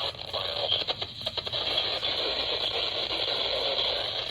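NOAA weather radio receiver on a weak signal: a steady hiss of static with crackles, a cluster of them about a second in.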